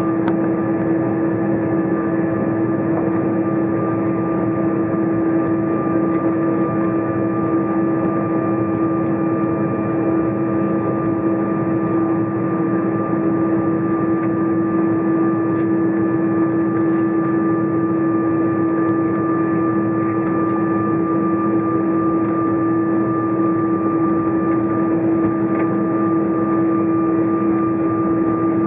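Steady cabin noise of an Airbus A320 taxiing, engines at idle: an even rumble with a constant low hum and a few fainter steady higher tones.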